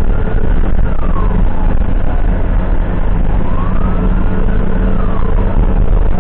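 Ambulance siren wailing in slow rising-and-falling sweeps, one about every four seconds, over the heavy steady rumble of the ambulance's engine and tyres on the road.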